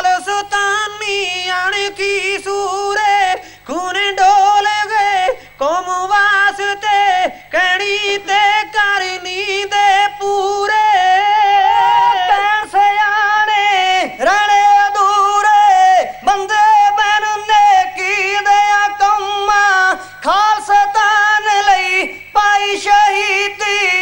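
Kavishri: men's voices singing a Punjabi heroic ballad at full voice and high pitch, unaccompanied, through a PA microphone. Long held notes, each line ending in a falling slide, with short breaths between lines.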